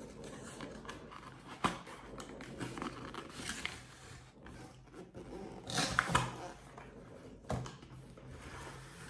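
Cardboard box being opened by hand and its inner packaging slid out: rubbing and scraping of cardboard, with a few light knocks, the loudest about six seconds in.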